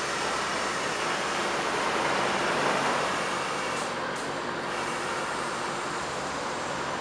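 Kelderman air-ride suspension on a Ford F350 inflating its front airbags to raise the truck, a steady hiss of air rushing in.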